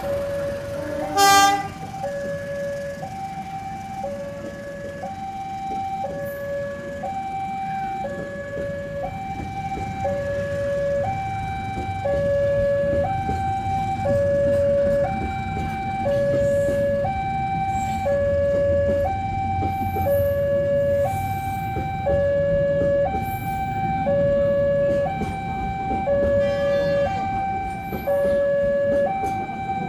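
Railway level-crossing warning alarm sounding a steady two-tone hi-lo signal, each tone about a second long. A short train horn blast about a second in is the loudest sound.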